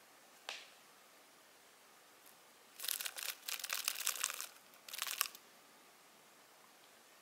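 A scorpion chewing a grasshopper, its exoskeleton crackling and crunching. The crunching comes in two spells of dense crackling: one about a second and a half long starting a little under three seconds in, then a shorter one about half a second later. A single faint click comes near the start.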